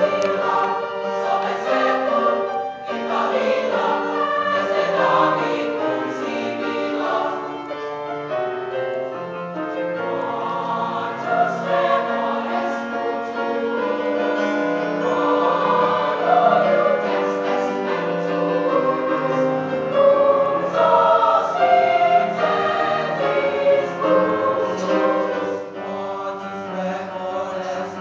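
A middle-school mixed choir of boys and girls singing together under a conductor, many voices holding and moving through sustained chords.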